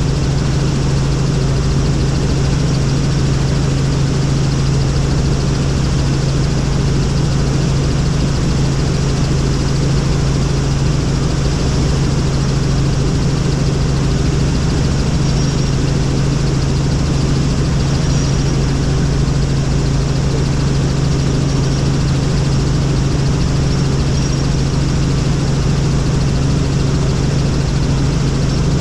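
Helicopter running in flight, a loud, steady engine and rotor drone with a strong constant low hum that does not change.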